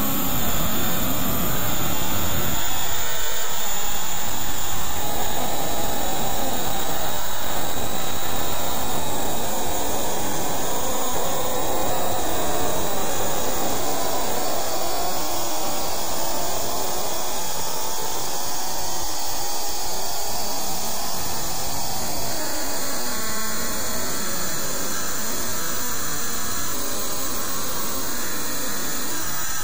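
Loud, steady, dense rushing noise with no clear pitch or beat, from heavily processed audio effects.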